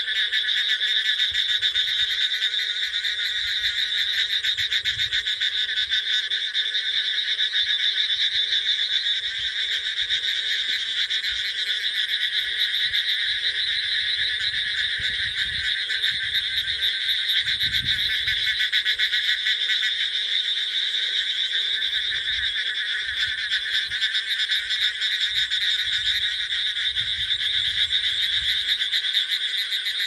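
Dense chorus of many frogs calling together, a steady rapid pulsing trill without a break, typical of a monsoon breeding chorus.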